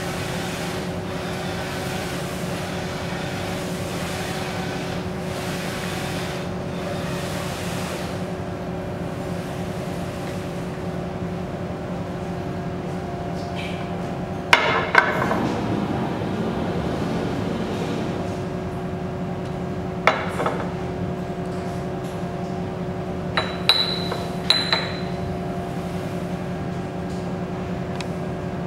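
UV flatbed printer with a rotary bottle attachment running with a steady hum from its fans and motors, the print carriage sweeping back and forth through the first eight seconds or so. From about halfway come a few sharp knocks and clinks as the printed bottles are lifted off the rollers and set down on the printer bed.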